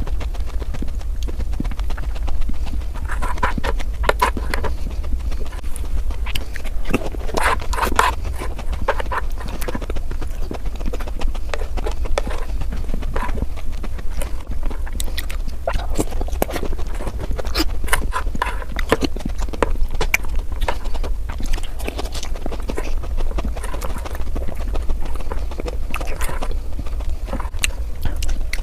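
Eating sounds played back at five times speed: a fast, irregular stream of crunching, chewing and mouth smacks that comes across as quick clicking, over a steady low hum.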